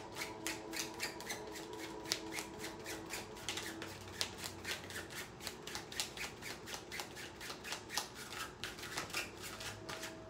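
A deck of tarot cards being shuffled from hand to hand: a steady run of soft, crisp card clicks and rustles, about three or four a second.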